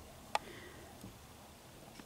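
Quiet room tone with a single short, sharp click about a third of a second in.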